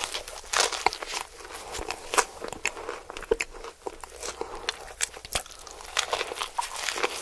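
Close-miked crunchy bites and chewing of crispy KFC fried chicken, the breading crackling in quick irregular snaps.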